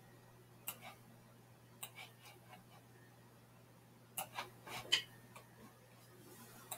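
Computer mouse button clicks while dragging items in software. Single sharp clicks come about a second and two seconds in, then a quick group of three around four to five seconds, the last the loudest, over a faint steady low hum.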